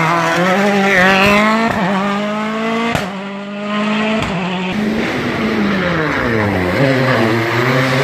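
Rally car engines revving hard through a hairpin, the note climbing and dropping again and again through gear changes, with a few sharp cracks. About two-thirds through the note falls away as a car slows, then climbs again.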